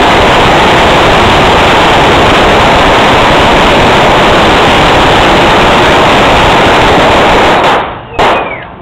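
A long string of firecrackers bursting in a continuous dense crackle, loud enough to overload the microphone, that dies out about three-quarters of a second before the end. It is followed by a single sharp bang near the end.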